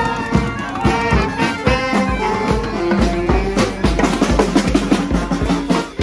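Marching band playing a march at close range: trumpets, trombones and a euphonium over clarinet and saxophone, with a snare and bass drum keeping a steady beat.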